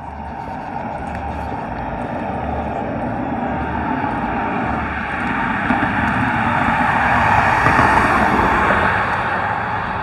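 A car approaching and passing on a concrete highway, its tyre noise building steadily and loudest about eight seconds in, then easing off.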